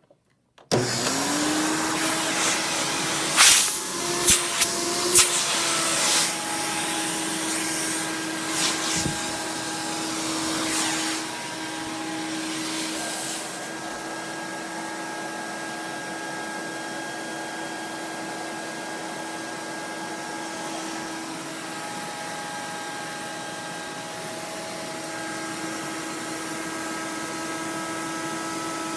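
Hoover Dimension 1000 canister vacuum switched on just under a second in, its motor spinning up to a steady whine and running on. Several sharp knocks come a few seconds in, and from about halfway it runs a little quieter and duller.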